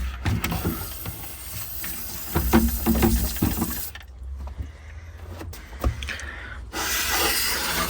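Water sprayer hissing in two spells as it flushes a boiler's heat exchanger, with scattered light clicks and knocks from handling the parts.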